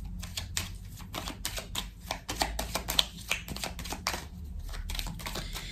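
Tarot cards being shuffled and handled: a rapid, irregular run of soft clicks and flicks.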